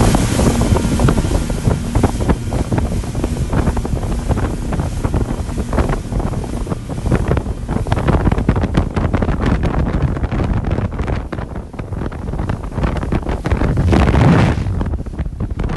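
Heavy wind buffeting the microphone over the rush of wake and spray and the outboard motors of a fast-running rigid inflatable rescue boat, with a louder gust about fourteen seconds in.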